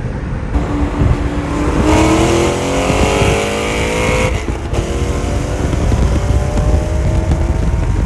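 Car engine at full throttle in a highway roll race, its pitch climbing steadily under hard acceleration over heavy road and wind noise. It breaks off a little past four seconds in and climbs again more slowly.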